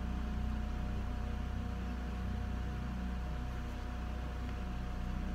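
Steady low hum with a light hiss and a faint, thin steady whine, without any knocks or voices.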